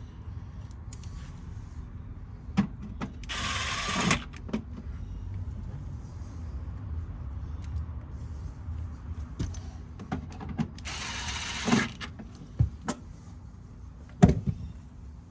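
Cordless drill-driver whirring in two short runs of about a second each, with clicks and knocks of handled metal parts and tools between them, the loudest knock near the end. A steady low hum runs underneath.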